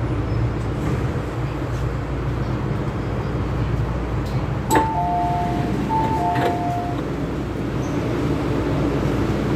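MTR M-Train car's steady low running rumble and hum as it comes to a stop, then a sharp click about five seconds in and the train's two-tone descending door chime sounding twice, signalling that the doors are opening.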